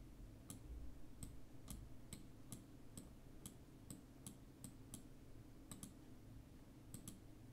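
Faint left mouse-button clicks, about two a second, with a short pause near the end.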